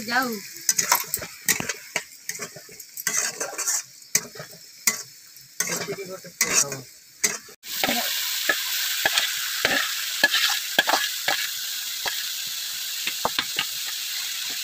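A steel spatula scraping and clinking in a wok of shredded cabbage, in separate strokes. About halfway through, the wok's lid comes off and a steady sizzle of vegetables frying in oil starts suddenly and holds, with the spatula still scraping through it.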